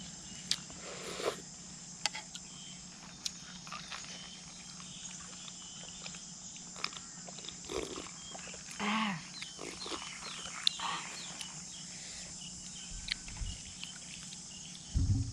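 Noodle soup being eaten close to the microphone: slurping and chewing, with scattered light clicks of a spoon or chopsticks against the bowl.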